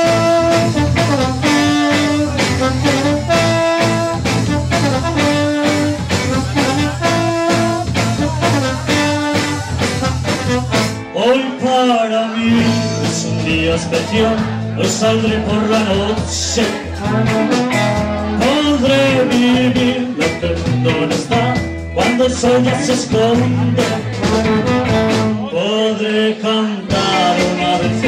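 A live band with trombone and electric guitars playing an up-tempo 1960s-style number. Long held notes come in the first ten seconds, then a busier melody line that wavers in pitch over a steady beat.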